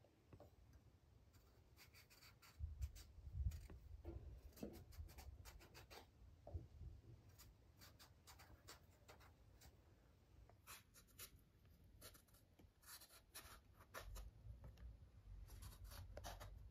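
Kitchen knife peeling strips of skin off fresh eggplants: a run of faint, short scraping strokes, with a dull bump about three seconds in.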